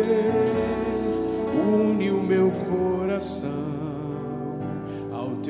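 Slow Christian worship song in Portuguese: voices draw out long held notes over soft instrumental backing.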